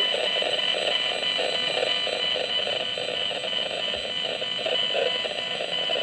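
Handheld RF radiation meter's loudspeaker playing back the microwave signals it picks up: a steady buzzing drone with a rapid flutter running through it. The loud noise marks strong radiation at this spot, with the meter reading near 2,000 µW/m².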